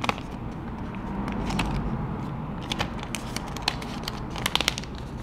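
Light clicks and rustling from small parts being handled, in scattered clusters over a steady low background hum.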